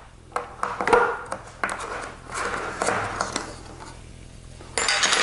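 Metal lid of a can of Bondo body filler being worked and pried off: a run of sharp metallic clicks and scrapes, then a louder metallic clatter near the end.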